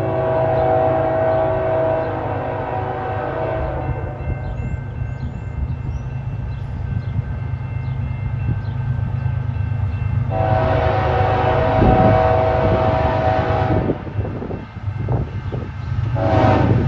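Multi-note air horn of a CN freight locomotive sounding long blasts for a crossing: one ending about four seconds in, another from about ten to fourteen seconds, and a third starting near the end.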